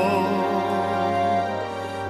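A man's sung note with vibrato, the held end of a phrase in a musical-theatre duet, over sustained orchestral accompaniment. The voice stops about half a second in and the accompaniment holds on alone.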